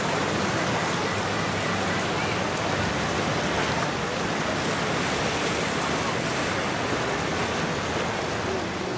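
Steady rush of waves and water, with wind noise on the microphone.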